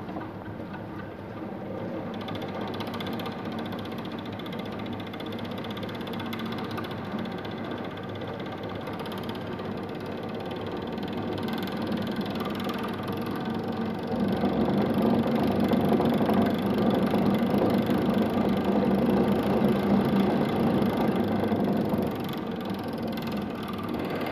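Whirling-of-shafts test rig running steadily: a thin steel shaft with a central disc spinning on its bearings, driven through a pulley, with the mechanical sound growing louder about 14 seconds in. At the start the shaft is whirling, bowed out in its first bending mode near its critical speed.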